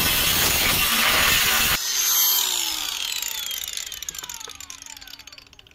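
Makita DGA504Z cordless angle grinder cutting 3 mm steel plate with a cut-off disc. A little under two seconds in, the cut stops abruptly and the disc spins down with a falling whine that fades away.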